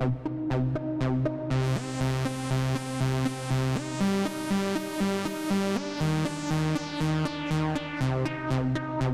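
Arturia Acid V, a TB-303-style software bass synthesizer, playing a factory-preset acid bassline sequence: a repeating pattern of short pitched notes over a low bass. About a second and a half in the filter opens and the sound turns much brighter, then it gradually darkens again toward the end.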